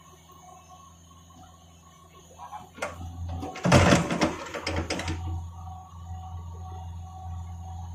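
Cat mini excavator's diesel engine running steadily. About three and a half seconds in there is a loud burst of clattering knocks lasting over a second as the steel bucket pulls away from a precast concrete box-culvert section.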